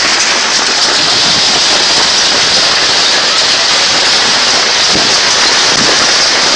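Heavy hail falling, a loud, steady, dense clatter of hailstones striking the canopy overhead and the pickup truck and camper trailer around it.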